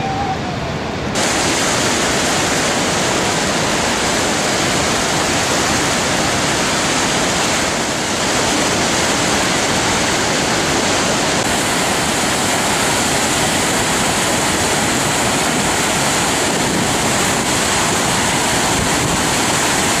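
Loud, steady rush of white water from the Niagara River rapids and falls. The rush changes slightly in character about a second in and again around eight seconds.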